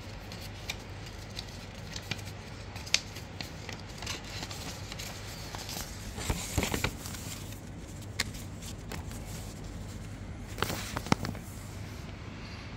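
Paper rustling and crinkling as a folded paper warranty leaflet is handled and opened out, with scattered light ticks and two busier bursts of rustling about six and eleven seconds in.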